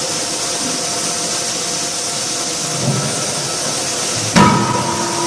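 C92K-16 CNC fully hydraulic closed die forging hammer striking a hot steel wrench blank in the dies: a single sharp blow about four seconds in that rings on after, over a steady workshop hiss.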